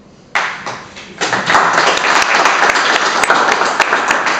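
Audience applauding, starting suddenly about a third of a second in and swelling to full strength about a second later.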